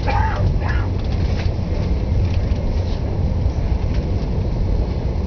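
Steady low rumble of a moving Via Rail passenger train heard from inside the coach, with wheel and track noise and a few faint ticks.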